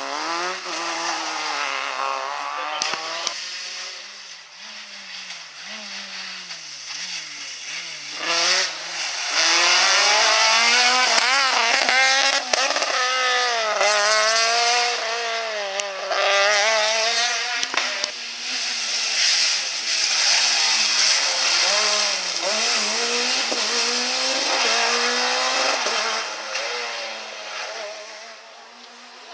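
Rally car engines revving hard, the pitch climbing and dropping again and again with gear changes as the cars brake for corners and accelerate away. The loudest stretch comes in the middle, as a car passes close.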